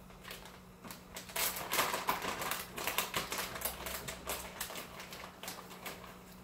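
Crinkling and rustling of a shredded-cheese package as a hand digs in and sprinkles cheese, a quick run of crackles that is busiest in the middle few seconds.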